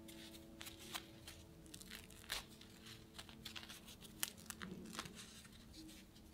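Crisp crust of a slice of whole-wheat seeded bread crackling as it is squeezed and torn apart by hand: a run of small sharp crackles, the loudest a little past four seconds in.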